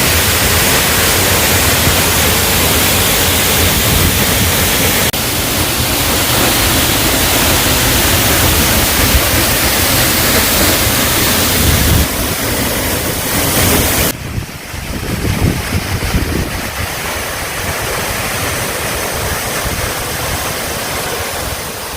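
Waterfall rushing, a loud steady wash of falling water. About two-thirds of the way in the sound drops and becomes thinner and more uneven, with gusty low rumble.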